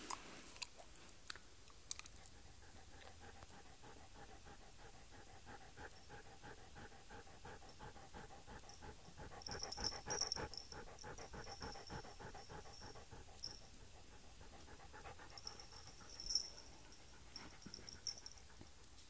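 Siberian husky panting rapidly and steadily close to the microphone, a fast even run of short breaths.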